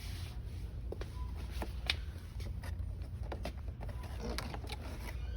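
Low steady hum of a shop's background, with a few light clicks and taps scattered through, such as boxed dolls being handled on the shelf.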